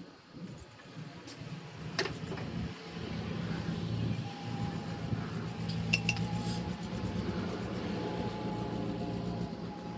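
Light metallic clinks, one about two seconds in and a quick pair about six seconds in, over a steady low hum.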